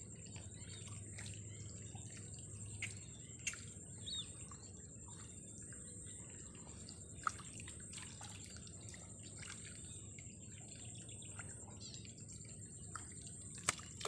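Quiet waterside ambience: faint bird chirps and scattered small ticks over a steady high-pitched whine. Right at the end, a fish hooked on the line starts splashing at the surface.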